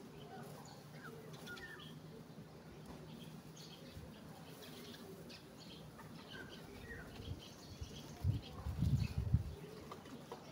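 Small birds chirping faintly with short scattered calls. A few dull low thumps come about eight to nine seconds in.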